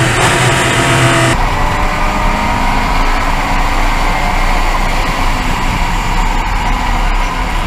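Onboard sound of a prototype race car at speed: the engine running with a steady rush of wind and road noise. About a second and a half in, the sound changes abruptly from a strong pitched engine note to a duller, steadier rumble and rush.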